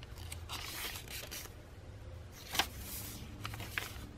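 Tea-dyed paper pages of a handmade hardcover journal being turned by hand: a rustle of paper about half a second in, then a sharp tap near the middle as a page is laid down, and a few lighter taps near the end.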